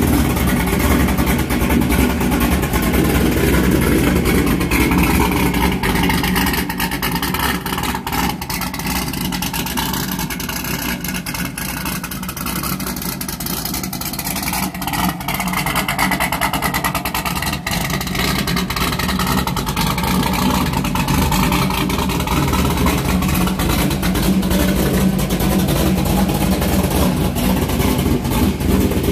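1998 Corvette's LS1 V8, fitted with a Tick Performance stage 2 camshaft and running untuned, idling steadily through its exhaust.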